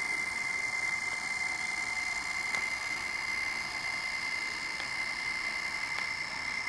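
Trix HO-scale DB class 280 model diesel locomotive under DCC, running past with its passenger cars: a steady high-pitched motor whine with a few faint clicks from the wheels on the track.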